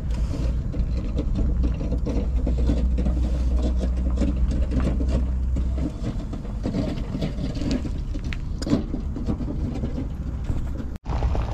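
Water at the boil in a stainless steel kettle heated on a gas heater: a steady low rumble with irregular crackling and popping from the bubbles. The rumble drops away about six seconds in.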